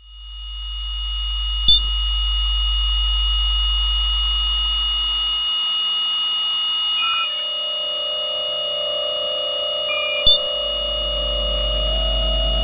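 Sound-design drone of steady high electronic tones over a low hum, fading in at the start. There is a sharp click about two seconds in and another near the end. A short crackly glitch comes a little past halfway, after which a lower steady tone joins, while the low hum drops out for a few seconds and returns.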